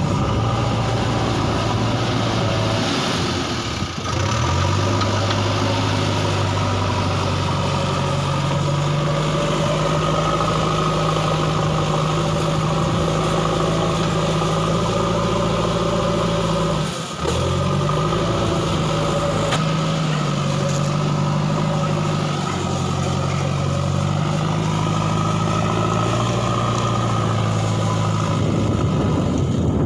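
JCB backhoe loader's diesel engine running steadily while it works. Its note dips briefly and climbs back twice, about four seconds in and again just past halfway.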